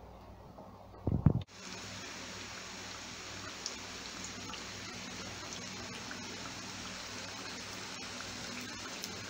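Saltfish fritters frying in hot oil in a pan: a steady sizzling hiss with small scattered pops. A brief loud low thump comes about a second in, just before the sizzle starts.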